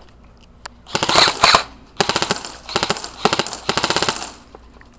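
Airsoft rifles firing on full auto: about five short bursts of rapid clicking shots.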